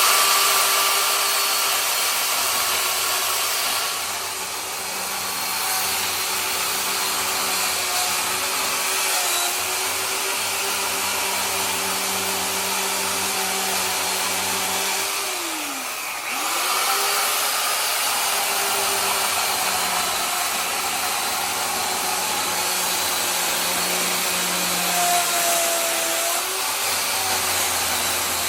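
Worx electric chainsaw running and cutting into a wood log, its motor whine steady under load. The motor winds down and spins back up about sixteen seconds in, and dips again near the end.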